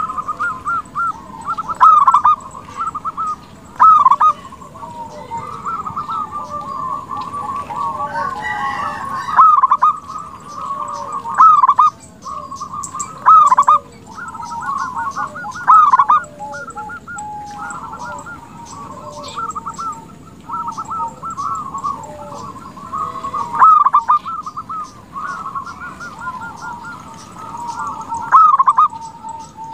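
Zebra dove (perkutut) singing: runs of rapid, trilled cooing notes, broken by louder strong coos every few seconds.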